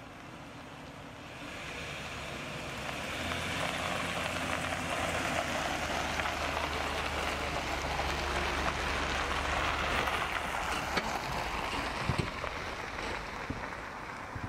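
Ram heavy-duty pickup truck pulling a tandem-axle travel trailer slowly past over a wet gravel driveway: the engine runs low and steady under a wash of tyre noise, growing louder for several seconds and then fading away, with a few light knocks near the end.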